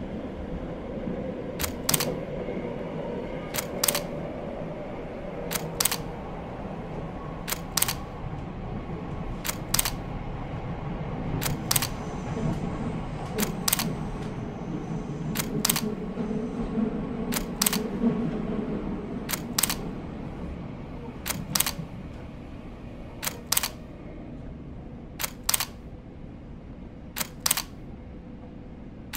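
A sharp double click repeating about every two seconds, over a steady low rumble of underground subway station ambience. The rumble swells in the middle and falls quieter over the last several seconds.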